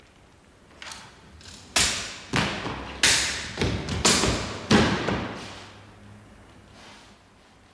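Japanese sword test-cutting: a quick series of about six sharp knocks and thuds over some three seconds as the blade cuts through targets on stands and the severed pieces drop onto the wooden floor, each hit trailing off in the hall's reverberation.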